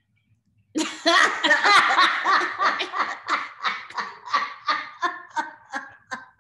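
Two women burst into hearty laughter about a second in, loud at first, then trailing off in shorter, evenly spaced bursts of giggling.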